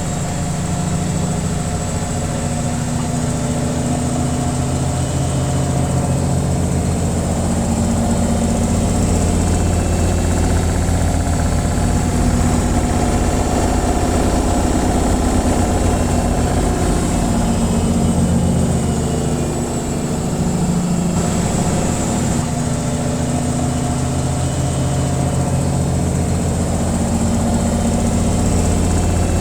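Washing machine on its spin cycle: a steady mechanical drone with a low hum and vibration.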